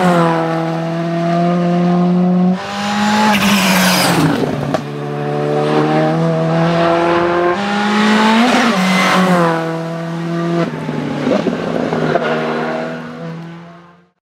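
Škoda Fabia Rally2 Evo rally car driven flat out past the camera, its turbocharged 1.6-litre four-cylinder engine note climbing and dropping several times through gear changes and passes. The sound fades out just before the end.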